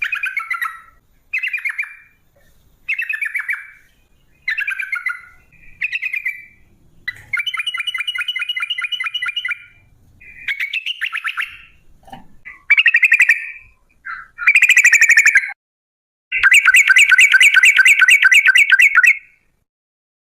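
Yellow-vented bulbul (trucuk) singing: a run of short bubbly phrases about a second apart, broken by two long rapid rolling trills of the kind keepers call 'ropel'.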